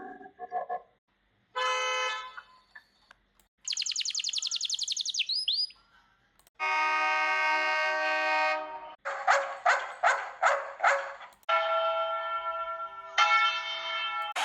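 A string of separate short sound effects. There is a brief horn tone, then a fast ringing rattle, a long held horn blast, a bell struck several times in quick succession, and more held horn tones near the end.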